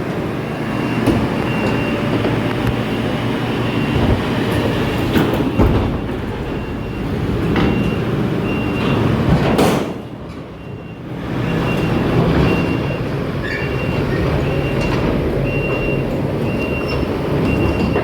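Heavy farm machinery engine running steadily, with a reversing alarm beeping at an even pace, a little more than once a second. The engine sound drops briefly about ten seconds in, then picks up again.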